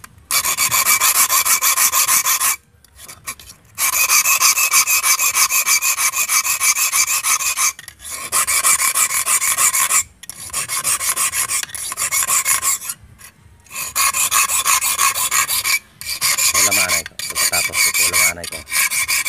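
Flat steel hand file rasping back and forth across the tip of a stainless steel wire, filing it to a point to form a hand-made fishing hook and its barb. Quick strokes come in runs of about two to four seconds, broken by short pauses.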